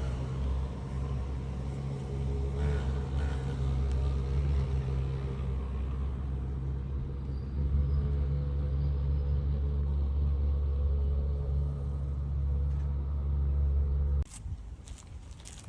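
A steady low rumble that cuts off suddenly near the end, followed by light clicks and rustling.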